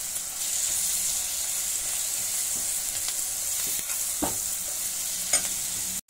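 Onion, carrot, peas and capsicum sizzling as they fry in oil in a kadai, stirred with a steel spoon that scrapes and clicks against the pan now and then. The sound drops out for an instant near the end.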